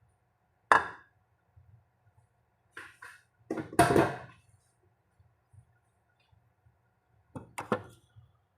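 A few sharp knocks and clatters: one about a second in, a louder, longer one near the middle, and a quick double knock near the end.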